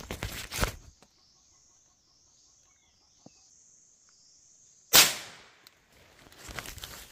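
Handling noise on the camera: a rustle at the start, then a sharp, loud knock about five seconds in that dies away over nearly a second, followed by more rustling. A faint, high, wavering hiss runs through the quiet stretch between them.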